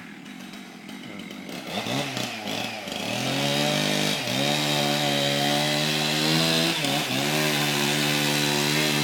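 A small engine or motor running at a steady pitch, speeding up about two seconds in, with two brief dips in speed.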